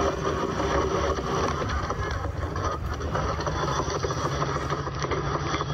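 Steady din of a large crowd.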